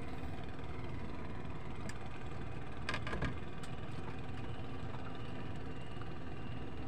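Small fishing boat's engine idling steadily, with a brief clatter about three seconds in.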